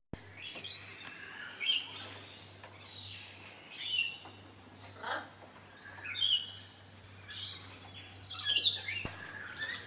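Wild birds chirping and calling, a string of short high calls a second or so apart, some sliding down in pitch, over a faint steady low hum.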